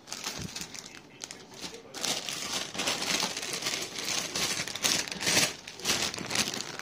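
Plastic bags around model-kit parts runners crinkling and rustling as they are handled. The sound grows louder and busier about two seconds in.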